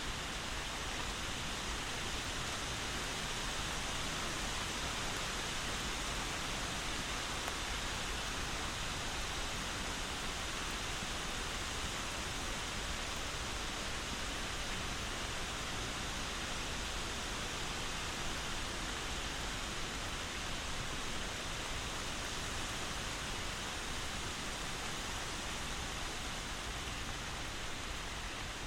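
Steady rain falling, a continuous even hiss with no separate drops or thunder standing out.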